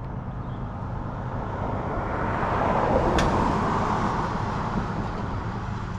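A pickup truck driving past on the road: engine and tyre noise rise, are loudest about halfway through, then fade as it moves away. A single sharp click comes just after the loudest point.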